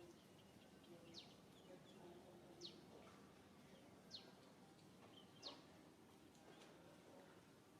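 Faint bird calls: short, high chirps falling sharply in pitch, four of them about a second and a half apart, over a soft background hiss.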